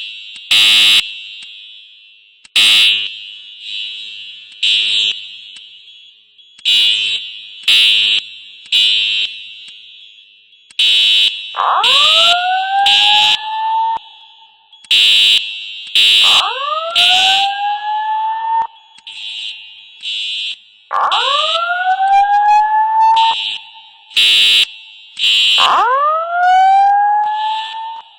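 Building fire alarm system sounding: horns blare in repeated short, loud blasts that overlap unevenly, with echo trailing each one. From about halfway through, a rising whoop tone sweeps upward four times, a few seconds apart. This is the evacuation signal that goes with the voice message.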